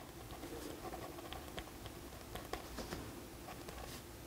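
Pen scratching on a small paper tracker card as a box is colored in, a string of faint quick strokes and ticks.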